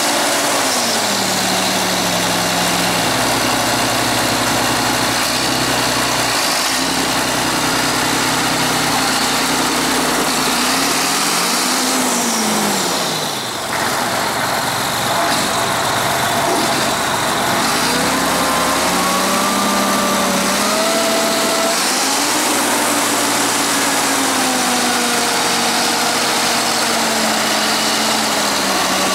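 John Deere 8120 tractor's six-cylinder diesel engine running as the tractor is driven, its pitch rising and falling several times with engine speed. A thin whine wanders in pitch for a few seconds past the middle.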